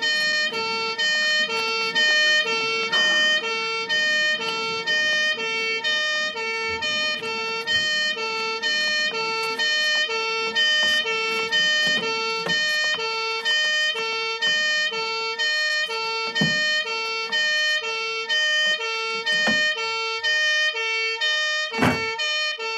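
Music: a note repeated at an even pulse, with a higher figure alternating between pitches above it. A few sharp knocks sound near the end.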